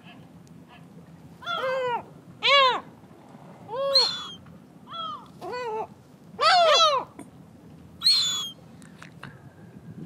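Black-tailed gulls calling: about seven short calls, each rising then falling in pitch, two overlapping about two-thirds of the way through.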